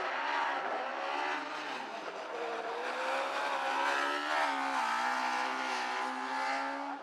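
Rally car engine driven hard, its note climbing and falling several times as the car accelerates and slows between corners.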